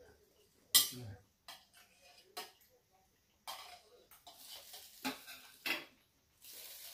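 Metal chopsticks clinking and scraping against a stainless steel dish and tray while pieces of boiled octopus are picked up, a series of separate sharp clicks with the loudest clink about a second in.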